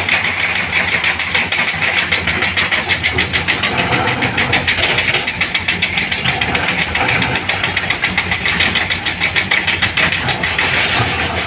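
Heavy diesel engine of the stone-loading machinery running steadily, with a rapid, even chugging pulse.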